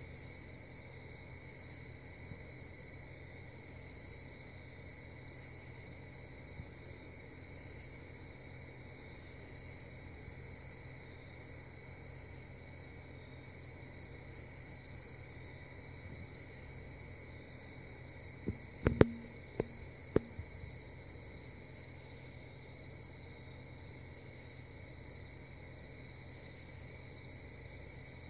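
A steady chorus of night insects chirring in a high, unbroken drone. About two-thirds of the way through there are four or five sharp knocks in quick succession.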